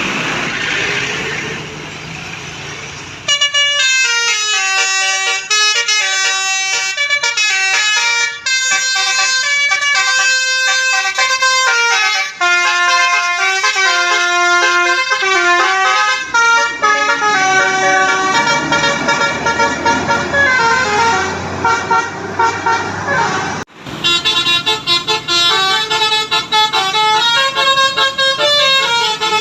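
A bus's 'telolet basuri' musical air horn playing a tune of stepping notes, several horn tones sounding together, starting about three seconds in after traffic noise. It breaks off suddenly near the end and a further horn tune follows.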